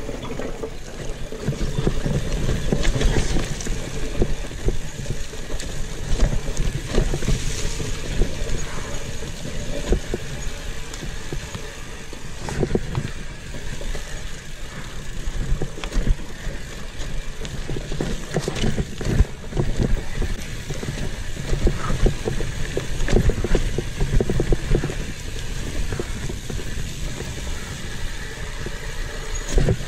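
Commencal Meta AM 29 mountain bike riding downhill on a dirt forest trail: tyres rolling over dry leaves and dirt, with frequent rattles and knocks from the bike over roots and bumps.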